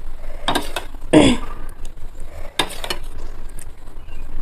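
Eating-table sounds: a metal spoon scraping and tapping on a plate as raita is spooned onto biryani, with rice being mixed by hand, in a few short bursts. The loudest, about a second in, has a short falling squeak.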